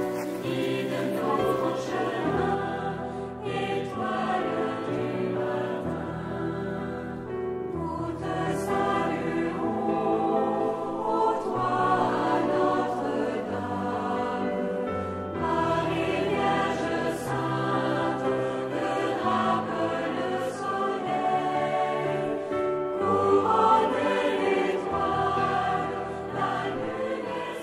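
Background choral music: a choir singing over held low notes that change every second or two.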